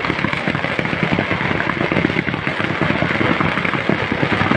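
Fireworks display firing a dense barrage of comets and crackling stars: a continuous run of rapid pops and crackles with no break.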